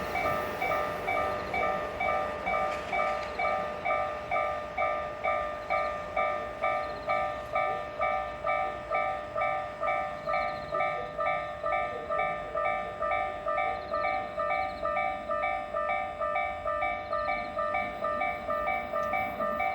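Japanese railway level-crossing alarm ringing its repeating electronic clang, about one and a half strikes a second, warning that a train is approaching and the crossing is closed.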